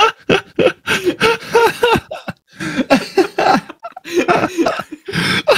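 A person's voice making a rapid run of short, cough-like non-speech vocal noises, loud and without words.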